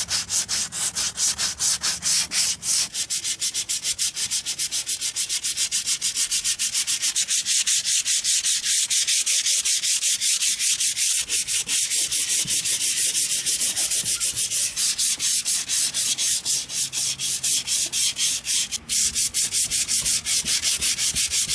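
Hand-sanding the painted fiberglass underside of a boat hull in quick, even back-and-forth strokes, several a second, with one brief break late on. It is scuffing the old paint to rough it up for a new coat.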